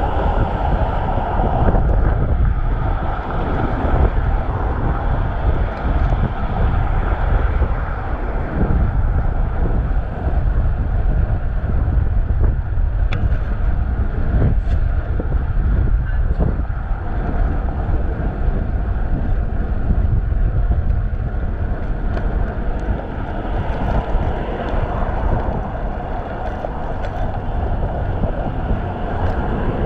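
Wind buffeting a chest-mounted GoPro's microphone while cycling, a steady low rumble, mixed with road traffic noise that swells near the start and again late on.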